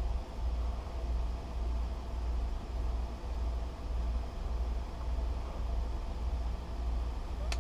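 Steady low hum of background machinery, swelling and fading about once a second, with one sharp click near the end.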